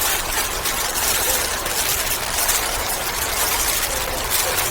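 Steady background noise: an even hiss with a low rumble underneath, from a running machine or appliance.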